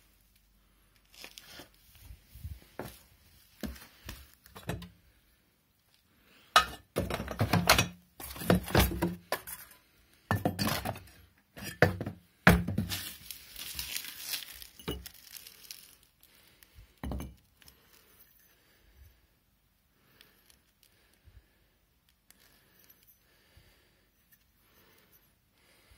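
Clinks, knocks and rattling of loose metal engine parts being handled and moved. The sounds are busiest and loudest in the middle, and only faint handling noises are left near the end.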